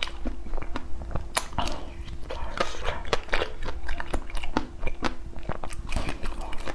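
Close-miked eating of a frozen ice cream treat on a stick: crisp, crackly bites and chewing, many irregular clicks and crunches.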